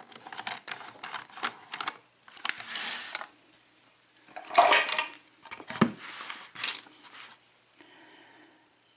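Small metal tools and lock parts clinking and rattling in a series of quick clicks, with louder rattles and a knock in the middle, as lock picks and a tension wrench are handled around a just-opened Yale 6-pin mortise cylinder lock.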